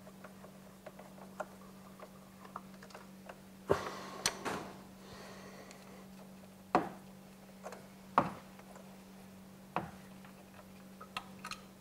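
Hand tool clicking and knocking against the Torx screws and plastic valve block as the vacuum solenoid block is unscrewed, in a few sharp irregular clicks over a faint steady hum.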